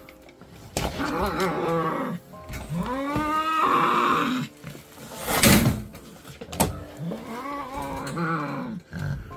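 A frightened cat yowling three times, long drawn-out cries that rise and fall in pitch, as it is cornered to be caught against its will. A short sharp burst of noise comes about halfway through.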